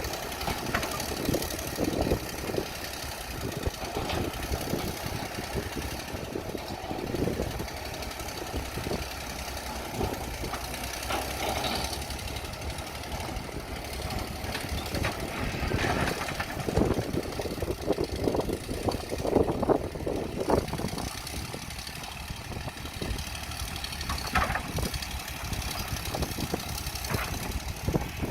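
Old excavator's diesel engine running steadily with a low rumble, with irregular louder bursts and clanks now and then as it works.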